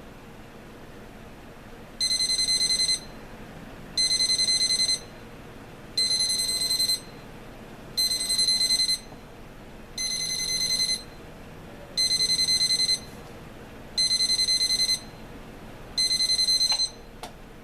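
AcuRite 13027 digital alarm clock sounding its alarm: a high electronic beep about a second long, repeated every two seconds, eight times, each beep made of rapid pulses. A short click follows near the end.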